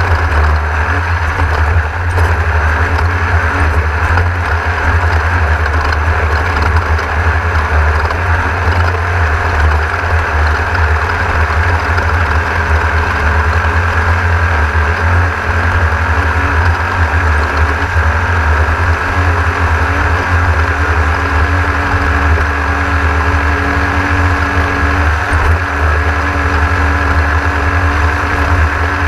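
Onboard sound of a Class 1600 off-road race car driven at race pace: its air-cooled Volkswagen 1600 engine running steadily under load, with a constant heavy rumble of the car over rough ground.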